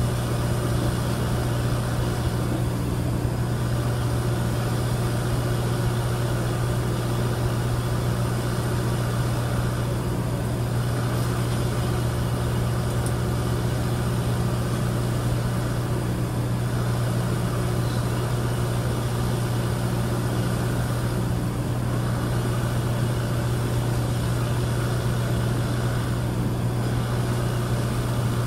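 Freight train of tank cars creeping past at walking pace, under a steady low engine-like drone that holds level throughout.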